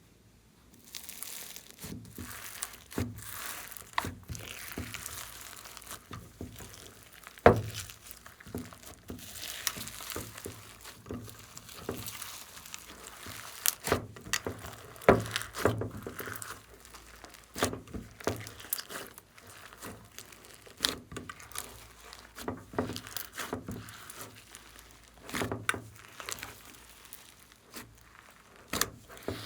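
Slime being squeezed and stretched by hand, crackling steadily with many sharp pops.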